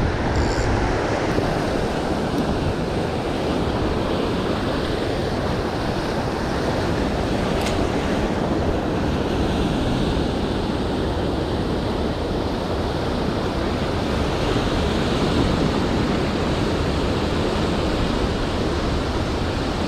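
Ocean surf breaking and washing up over a rocky shoreline, a steady rush with some wind on the microphone.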